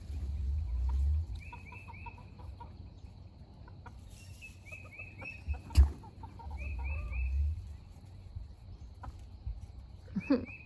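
Backyard hens calling in short clucks, in quick runs of three or four repeated several times. A low rumble comes twice, and one sharp knock sounds about six seconds in.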